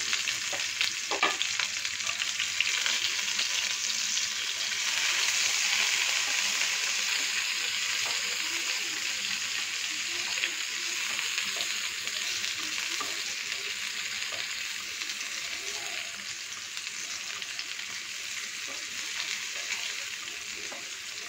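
Chopped shallots sizzling in hot oil in a nonstick frying pan as they are stirred with a wooden spatula, with a few sharp crackles and a steady hiss that slowly softens.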